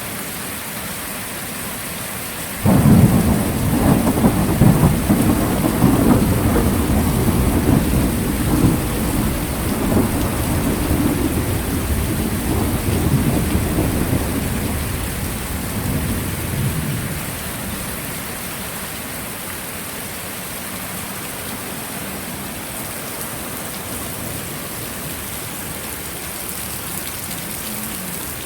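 Heavy rain falling steadily, with a sudden crack of thunder about three seconds in that rolls on as a long low rumble and dies away about fifteen seconds later.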